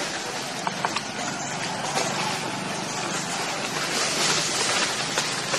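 Steady rushing noise, with a few faint clicks.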